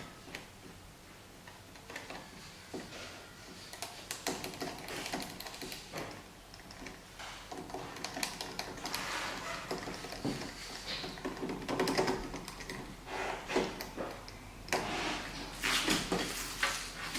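Irregular clicks, taps and scraping of small hard objects being handled, sparse at first and growing busier and louder from about halfway through.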